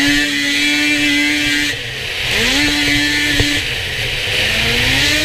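Snowmobile engine revving hard under repeated throttle: three times it climbs quickly to a high steady pitch and holds for a second or more before dropping back. A loud hiss runs under it throughout.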